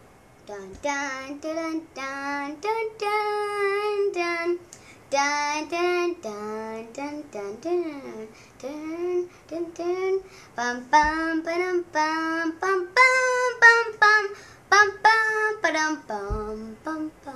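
A child singing a tune alone, without instruments, in a string of held notes with short breaks between them.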